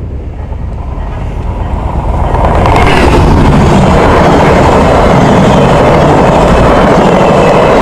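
VIA Rail passenger train passing close by at speed. The noise builds as the locomotive approaches, then from about three seconds in it is a loud, steady sound of the locomotive and coaches going by, wheels running on the rails.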